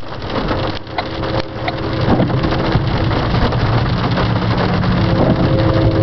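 Approaching freight train led by an EMD SD70 diesel locomotive: a low rumble that grows louder from about two seconds in, with a few steady engine tones joining near the end. Heard from inside a car, with scattered clicks in the first couple of seconds.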